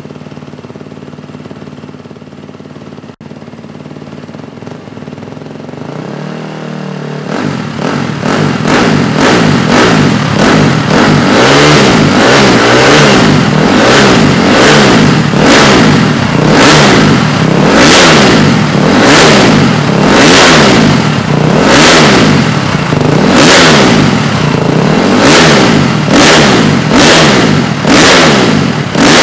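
KTM 350 SX-F's single-cylinder four-stroke engine through a Yoshimura RS4 slip-on exhaust, idling and then, from about eight seconds in, blipped up and down over and over, roughly once a second.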